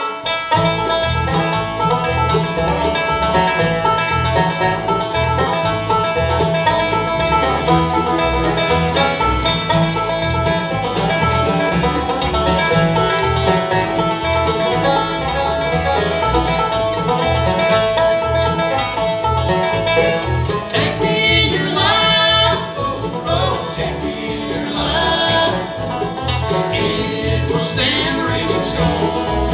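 Bluegrass band playing an instrumental intro on fiddles, acoustic guitar, mandolin, banjo and upright bass. Harmony vocals come in about two-thirds of the way through.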